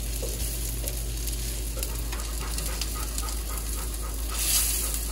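Breaded fish fillets frying in butter in a hot cast-iron skillet: a steady sizzle that swells briefly near the end.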